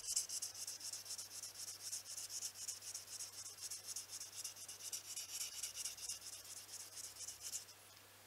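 A Mercator knife blade drawn across 5000-grit sandpaper on a hand-held block in quick, light, repeated strokes, giving a fine scratchy hiss as the edge is honed back to shaving sharpness. The strokes stop shortly before the end.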